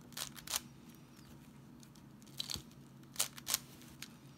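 Plastic layers of a 7x7 puzzle cube being turned by hand, about five sharp clicks as wide slices snap round, over a faint steady low hum.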